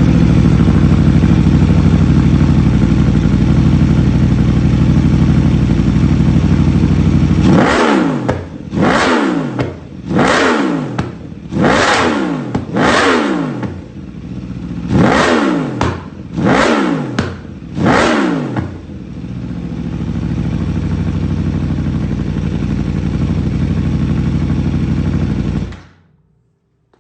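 2021 Aprilia RSV4 Factory's 1099 cc V4 on an SC Project full exhaust, running at a steady raised idle, then blipped about eight times in quick succession, each rev rising sharply and dropping back. It then settles to a quieter idle before the sound cuts off suddenly near the end.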